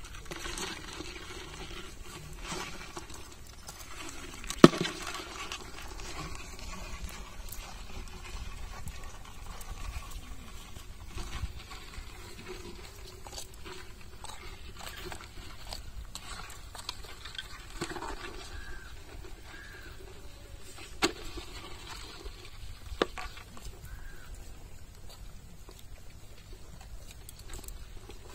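Small sickle scraping and digging into damp sand at crab burrows, with loose sand pattering and three sharp knocks of the blade.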